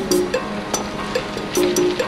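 Background music with a steady percussive beat and short repeated notes.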